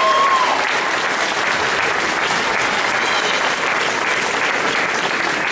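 Audience clapping, a dense steady applause that fills the hall.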